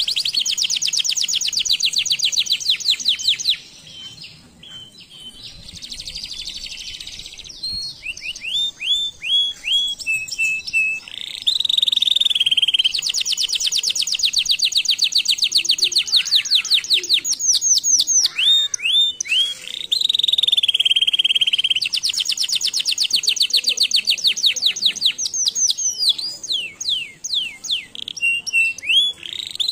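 Canary singing a long song of very rapid trills and rolls. It breaks off for a few seconds about four seconds in, then goes on with falling slurred notes and more fast trills.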